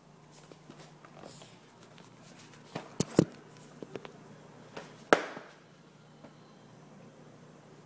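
Knocks of a cereal box and phone being handled and set down on a hard kitchen countertop: a quick cluster of sharp knocks about three seconds in and one louder knock about five seconds in, over a faint steady low hum.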